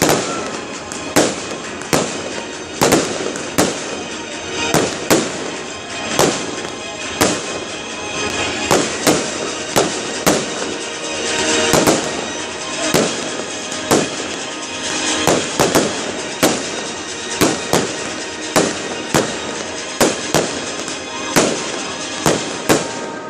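Fireworks bursting in a steady run of loud bangs, roughly one or two a second, with music playing underneath.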